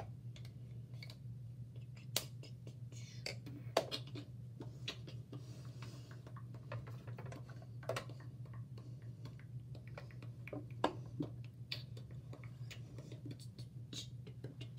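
Scattered small clicks and taps of makeup items and containers being handled, the loudest about 4 and 11 seconds in, over a steady low hum.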